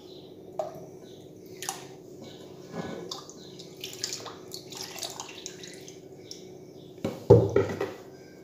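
Milk being poured into a pan of flour-and-water batter, splashing and gurgling as a silicone spatula stirs it, with one louder thump about seven seconds in.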